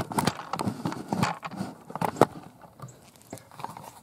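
Footsteps walking through tall dry grass: an irregular run of rustles and crackles of stalks underfoot.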